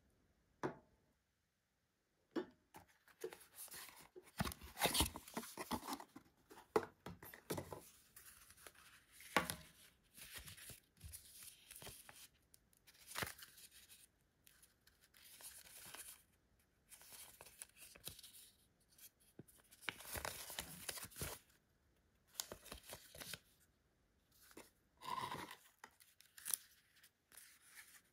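Paper rustling and crinkling in irregular bursts with short pauses, as a folded paper instruction leaflet and its packaging are handled and unfolded.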